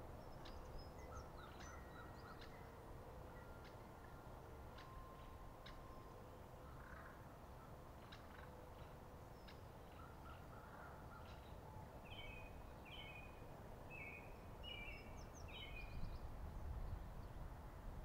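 Faint birdsong: several small birds chirping and whistling short notes, with one bird repeating a quick phrase about six times in the second half, over a low steady background rumble.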